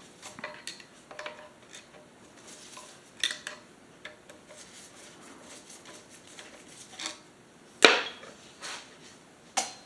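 Light metallic clicks and clinks of a 3/16 Allen wrench working the cap screws loose from the base of the main air cylinder, with two louder knocks near the end.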